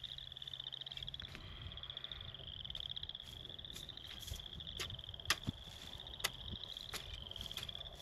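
Frogs trilling over and over, each pulsed trill lasting about a second and rising slightly in pitch. A few sharp clicks stand out in the second half.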